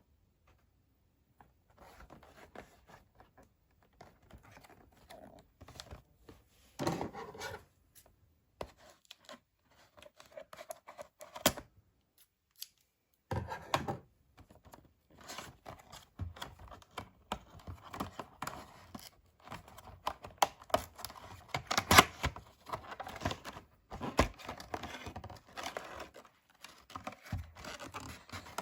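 Toy packaging being opened: irregular cutting, tearing, scraping and clicking of cardboard and plastic, starting about two seconds in, with a short pause about halfway through.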